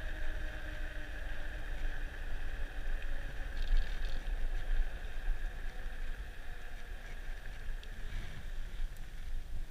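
Wind buffeting the microphone of a moving Rad Runner Plus electric bike, with the steady high whine of its geared rear hub motor under power.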